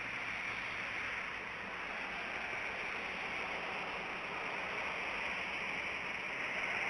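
Steady, even outdoor hiss with no distinct events, growing slightly louder near the end.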